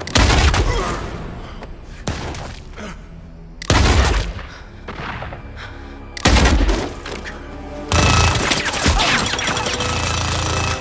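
Heavy gunshots from a four-barrelled lever-action pistol: one right at the start and two more a few seconds apart, each ringing out with a long echoing tail, then a longer loud stretch of blasts near the end. Dramatic film music plays under them.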